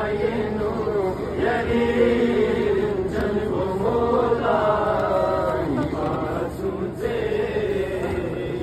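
Several men's voices chanting a noha, a Shia mourning lament, together in a sustained, swaying melody.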